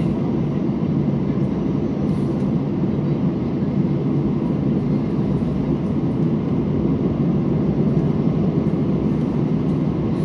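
Steady cabin rumble of an Airbus A320 taxiing, its wing-mounted jet engines at low taxi power, heard from inside the cabin.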